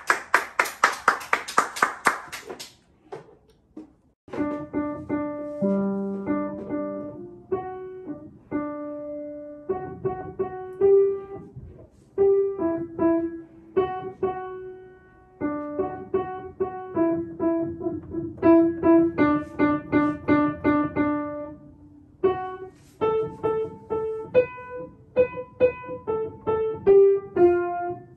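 Upright piano played by a young child: a simple melody of separate notes, now and then with a lower note beneath, in short phrases with brief pauses between them. It opens with a couple of seconds of fast, even repeated strikes, then goes quiet for about a second and a half before the melody begins.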